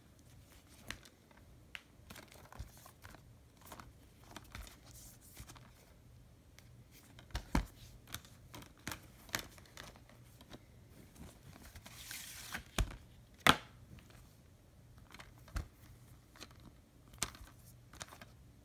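Plastic Blu-ray and DVD cases being handled: scattered clicks and taps as the cases are picked up, turned and set down, with a short crinkling rustle a little past the middle.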